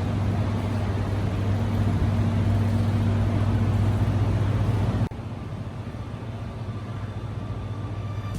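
Steady low hum under a broad rushing noise. It drops abruptly about five seconds in and carries on more quietly.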